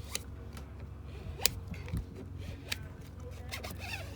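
Hands working on a vinyl decal: a few sharp clicks and light scratchy handling sounds, the loudest click about a second and a half in, over a steady low hum.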